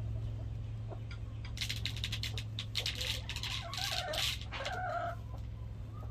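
Chickens at a nest of hatching eggs: a hen gives short low clucks and there is scratchy rustling about one to four seconds in, over a steady low hum.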